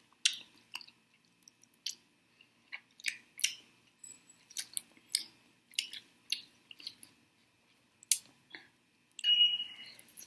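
Close-up chewing of chicken wings: irregular mouth clicks and crackles. Near the end comes a louder burst with a short high tone.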